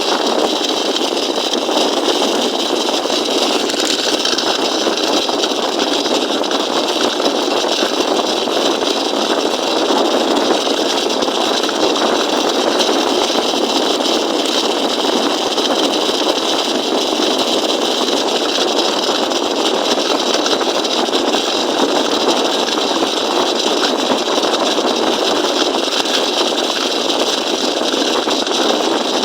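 Motorized bicycle's small engine running steadily at an even speed.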